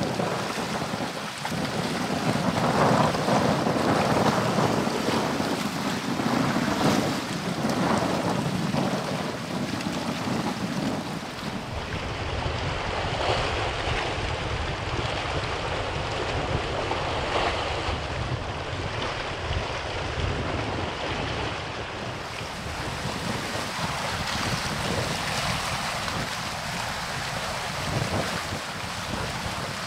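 Wind buffeting the microphone over the steady wash of water, with no clear engine tone; the sound changes abruptly about twelve seconds in and again about twenty-two seconds in.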